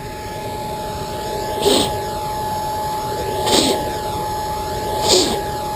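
Used-oil blast furnace burning with a steady roar, with three short bursts of air hissing into it at roughly even intervals as someone blows into the fire to feed it air.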